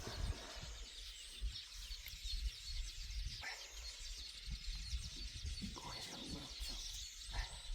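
Faint outdoor ambience: a steady chorus of small high chirps over a low rumble, with a few soft knocks.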